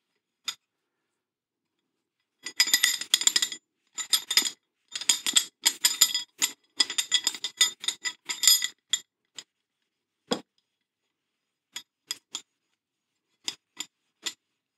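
Steel wool rubbed briskly back and forth over the steel sliding handle of a Record No. 52 vice, blending out sanding scratches: a run of rapid scratchy strokes that starts about two and a half seconds in and stops after about six seconds. A few separate light metallic clinks follow.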